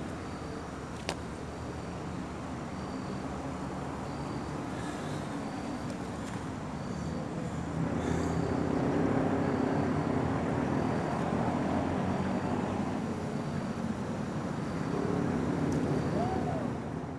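An engine running with a steady low drone, growing louder about halfway through and again near the end.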